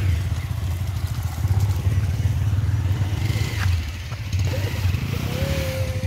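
Motorcycle engine running at low revs with a steady, pulsing low rumble.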